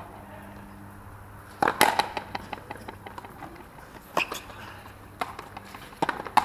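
Sharp knocks of a frontenis ball striking racket strings, the concrete floor and the fronton wall, scattered through a low background hum. The loudest knocks come in a pair about two seconds in and as two knocks close together near the end.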